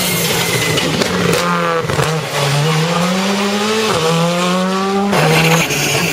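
Rally car engine at full throttle, its pitch climbing and then dropping sharply at gear changes about two, four and five seconds in, with a few short sharp cracks.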